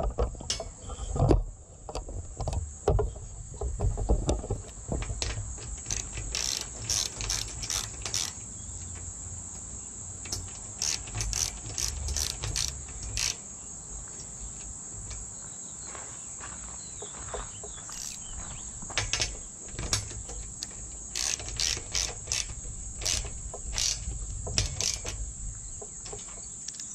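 Small socket ratchet clicking in quick runs as a bolt is tightened down into a spring nut inside steel strut channel. Behind it, a steady high drone of insects.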